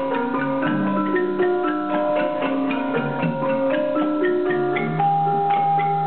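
Malay gamelan ensemble playing a traditional tune: bronze kettle gongs and a metallophone struck with mallets in quick runs of notes that ring on, with lower gong tones held underneath.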